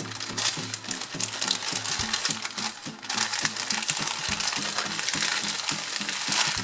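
Baking paper crinkling and rustling as hands roll a soft sponge cake up in it and press the sheet around the log, with many small crackles that dip briefly about halfway through.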